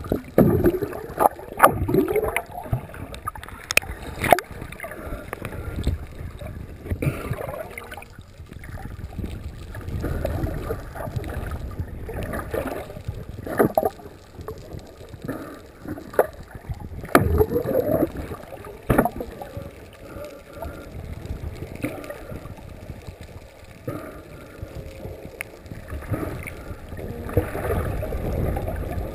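Muffled underwater water noise picked up through a diving camera, with low rumbling swells and gurgling, and scattered sharp knocks and clicks.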